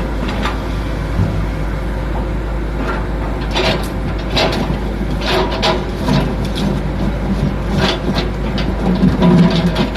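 Komatsu PC200-7 excavator's diesel engine running with a steady rumble. From about a third of the way in, a run of sharp knocks and clatter, typical of the bucket working and spoil landing in a dump truck bed.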